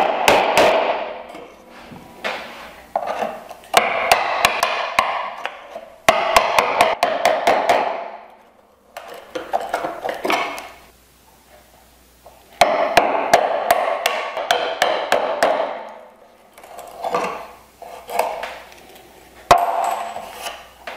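Brass-headed mallet striking a wooden-handled chisel, chopping waste wood out of a bridle joint. It comes as runs of quick blows, a second or two each, with short pauses between.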